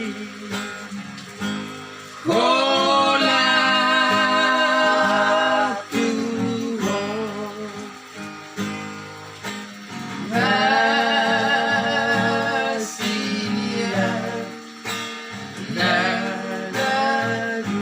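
Singing with an acoustic guitar strummed underneath: long held sung notes with vibrato, about two seconds in and again around ten seconds in, with shorter phrases between.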